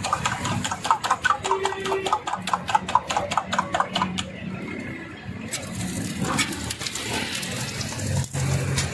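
Fork beating eggs in a steel bowl, a fast clinking at about six strokes a second that stops about four seconds in. From about halfway through, a steady sizzling hiss of oil on a hot flat-top griddle where buns are toasting.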